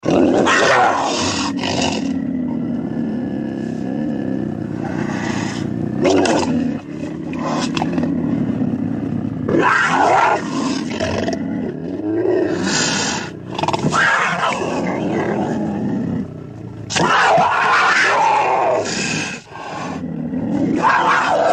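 Designed dinosaur sound effects for Alioramus: a series of loud, rough roars, about six, each lasting one to two seconds. A continuous low growl rumbles between them.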